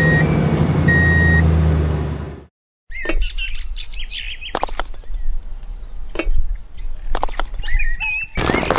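A steady music bed carrying two short high beeps ends abruptly. After a brief silent gap, birds chirp with scattered sharp knocks and clicks.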